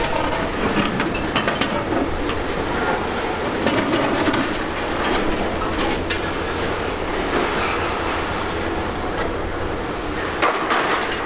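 Heavy demolition machinery running, a mobile crusher and excavators, with a steady clatter of broken rubble and scattered knocks throughout.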